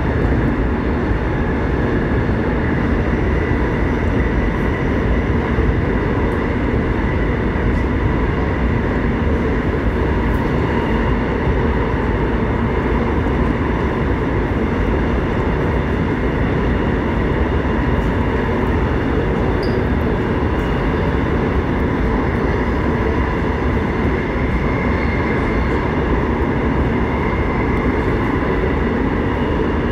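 Gyeonggang Line electric multiple unit running at speed: a steady, loud rumble of wheels on rail with a faint steady whine above it.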